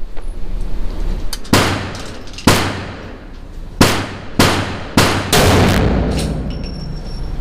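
Desert Eagle .50 AE pistol firing six shots at an uneven pace, roughly a second apart with the last two close together. Each shot is a sharp crack with a long echoing tail.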